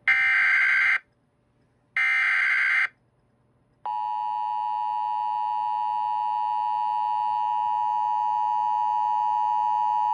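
Emergency Alert System SAME header: two warbling digital data bursts of about a second each, a second apart, followed about four seconds in by the steady EAS attention tone.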